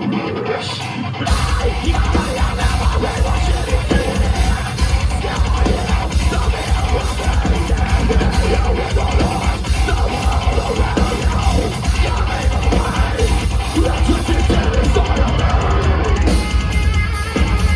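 Metalcore band playing live at full volume: heavy distorted guitars and pounding drums with screamed vocals. The low end drops out for about a second at the start, then the full band comes back in.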